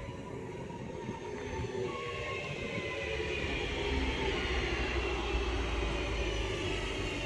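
Class 323 electric multiple unit arriving and slowing along the platform. An electric whine falls in pitch over a low rumble of wheels on rail, which grows louder from about three seconds in as the coaches draw alongside.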